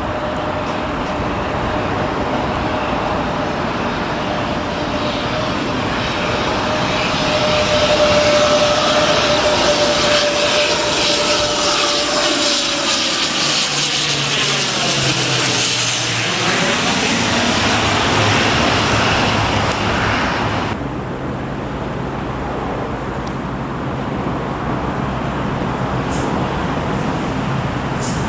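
Fokker 50 twin-turboprop flying low overhead on approach, its propellers and engines giving a steady droning tone that grows louder. Its pitch drops as the aircraft passes overhead about halfway through, and it then recedes as a lower hum.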